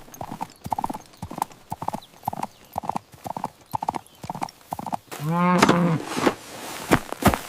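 Horse hooves clip-clopping at a steady walking pace, two to three clops a second. About five seconds in, a horse whinnies once with a wavering pitch, then the hoofbeats go on.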